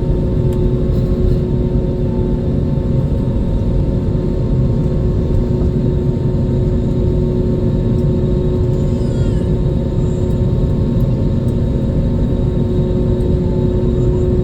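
Airbus A321neo jet engine and airflow noise heard inside the passenger cabin: a steady, even rumble with a constant hum running under it.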